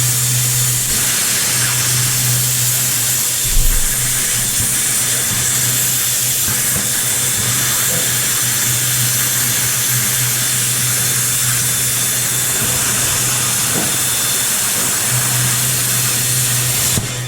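A shop power tool running without pause, a loud, steady hiss over a low hum, cutting off abruptly near the end.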